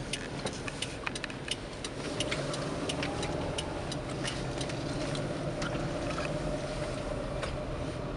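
Car cabin noise while driving: a steady engine and road hum that grows louder about two seconds in, with many light, irregular ticks throughout.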